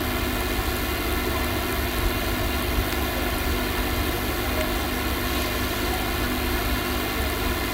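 Steady background hum and hiss with no speech, with a couple of faint clicks.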